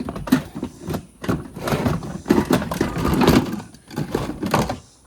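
Objects being handled and moved about in boxes: a busy run of knocks, clunks and rustling, busiest in the middle.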